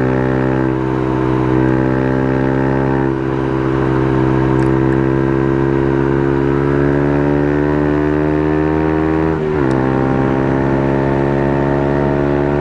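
Motorcycle engine running under steady throttle, its pitch slowly rising, with a brief dip in pitch about nine and a half seconds in before it picks up again.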